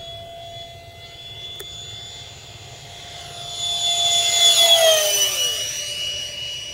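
High-pitched whine of a model jet's 68 mm metal electric ducted fan, driven by a 4000kv outrunner motor, in flight. It grows louder as the jet makes a low fly-by, then drops in pitch and fades as it passes, about five seconds in.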